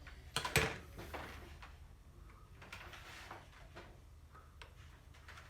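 Metal parts and tools being handled during a starter motor repair: a sharp knock about half a second in, then scraping and a few small clicks.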